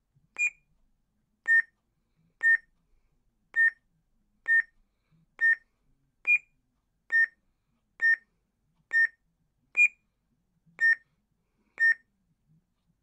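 Sabertrio Arclyte FX lightsaber soundboard beeping about once a second as it steps through blade colors in color change mode. Most beeps share one pitch, and three are slightly higher.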